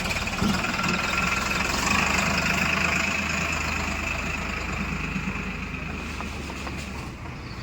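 Diesel engine of heavy farm or earthmoving machinery running steadily at an even speed.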